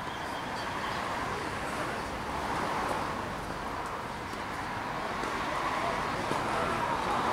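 Steady outdoor background noise with indistinct distant voices; no ball strikes are heard.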